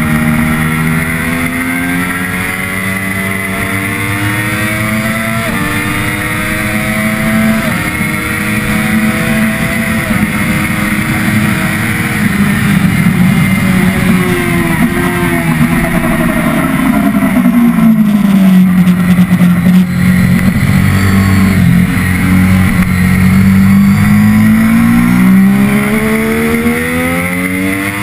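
Triumph Daytona 675R's three-cylinder engine at race pace: it pulls up through the gears with quick upshifts in the first several seconds, the revs fall through the middle as the bike slows, then climb again near the end. Wind rush runs under the engine throughout.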